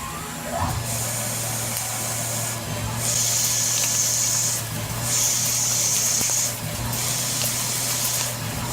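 CNC machine running with a steady motor hum, under repeated hissing bursts of spray, each about one and a half seconds long with short breaks between them.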